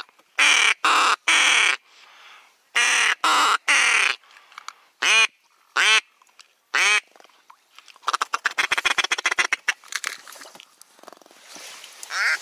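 Loud duck quacking in short series: two runs of three quacks, then three single quacks falling in pitch, then a quick chattering run about eight seconds in.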